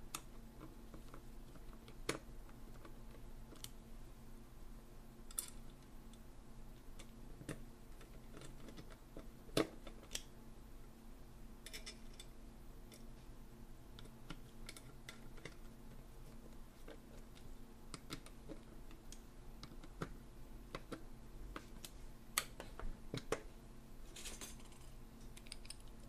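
Scattered light clicks and taps of a Weiser deadbolt's metal lock body and a screwdriver being handled during reassembly, one sharper knock about nine seconds in and a quick run of clicks near the end, over a steady low hum.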